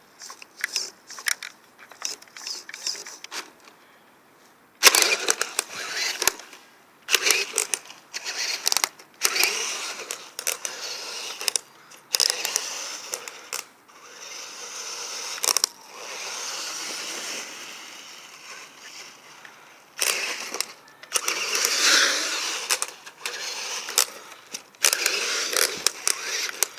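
Irregular clicks, knocks and rustling of hands handling small plastic parts, with a steadier rustle partway through.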